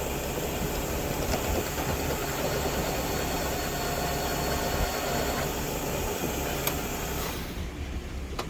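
Milling machine running steadily with a low hum and a high hiss; the hiss drops away about seven and a half seconds in while the low hum carries on.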